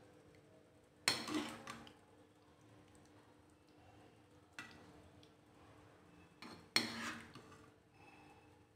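Metal serving spoon clinking and scraping against a cooking pan while creamy penne is scooped out. There are a few sharp clinks: a loud one about a second in, a lighter one in the middle, and two close together near the end.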